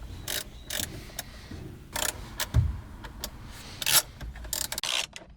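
Hand ratchet clicking in short irregular bursts while turning a T30 Torx bolt that holds a steering-wheel airbag.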